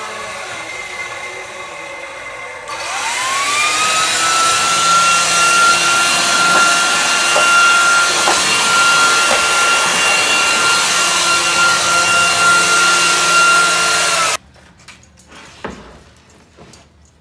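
Handheld electric air blower switched on about three seconds in, its motor whine rising quickly to a steady high pitch over a rushing of air as it blows out the impeller mould cavities. It runs steadily for about eleven seconds, then cuts off abruptly near the end.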